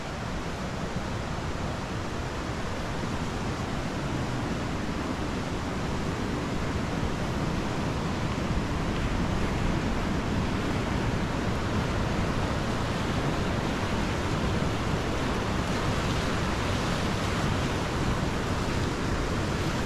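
Steady rushing of a river, slowly growing a little louder.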